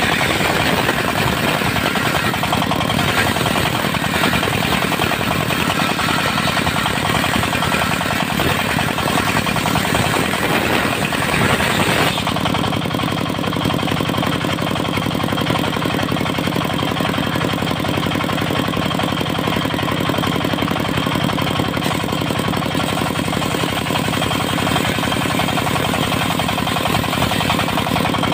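Diesel-driven circular sawmill running, its blade cutting dry teak for about the first twelve seconds. The cut ends abruptly about twelve seconds in, and the diesel engine runs on steadily with the blade unloaded.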